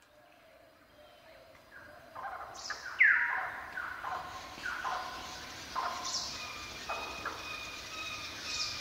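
Bird-like chirping calls, each a quick downward sweep in pitch, repeating roughly once a second; the sound fades in over the first two seconds and the loudest call comes about three seconds in.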